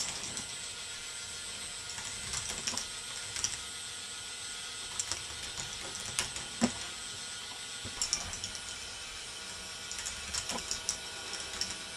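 K'nex ball machine running: plastic balls clicking and clattering along the K'nex track pieces in irregular sharp clacks, the loudest about six and a half seconds in, over a steady mechanical whir.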